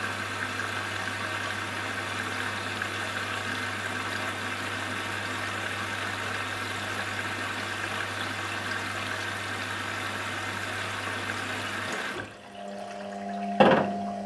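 Washing machine running, with a steady churn of water and a low hum. The sound cuts off suddenly about 12 seconds in, and a single sharp knock follows near the end.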